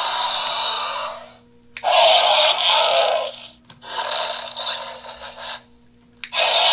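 Recorded dinosaur roars played through the small built-in speakers of Mattel Jurassic World Allosaurus toy figures: a string of roars, each about two seconds long, with short gaps between them.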